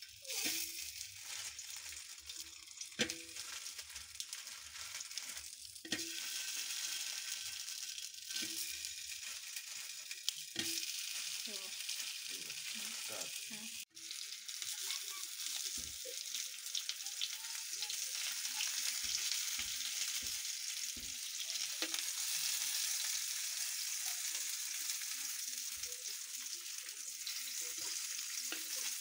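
Sausages (smokies) sizzling in hot oil in a frying pan, the frying hiss getting louder as more sausages go in. Occasional sharp knocks and clicks from the sausages and metal tongs against the pan.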